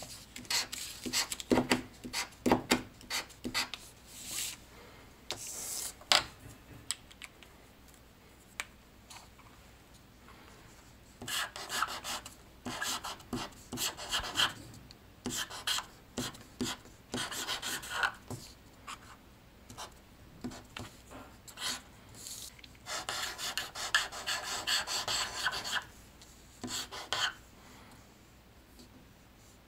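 Rubbing and scraping with scattered clicks and knocks; two longer stretches of scraping, about twelve seconds in and again near twenty-four seconds.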